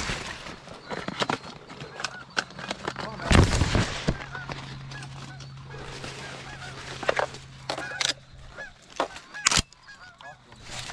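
Canada geese honking over and over in short calls, with one loud thump about three and a half seconds in and a few sharp clicks later.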